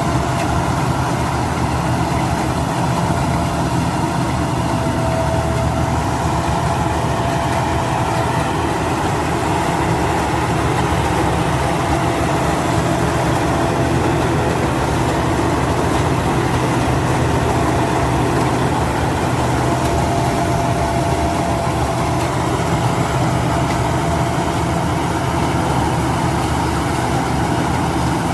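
Rice combine harvester running steadily: an even engine drone with a thin, steady whine above it.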